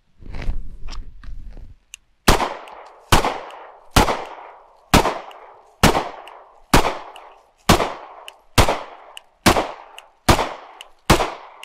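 Handgun fired eleven times at a steady pace, a little under one shot a second, each shot followed by a short echo. Before the first shot there are about two seconds of low rumble and faint clicks.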